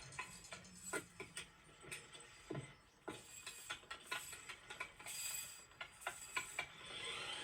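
Plastic toys moving about: scattered small clicks, taps and clatters, with a duller knock about two and a half seconds in.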